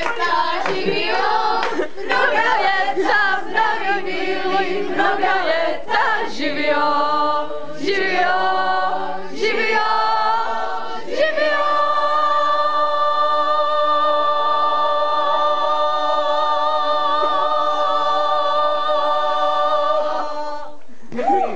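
A group of people singing together without accompaniment. About eleven seconds in they settle on one long held chord, which lasts about nine seconds and stops shortly before the end.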